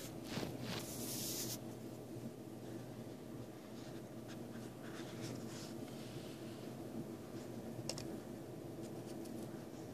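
A tiny folded paper zine being handled by fingers: a burst of paper rustling and scraping in the first second and a half, then lighter scratches and small ticks as it is shifted on a desk surface, with a sharp tick near 8 seconds. A steady low hum runs underneath.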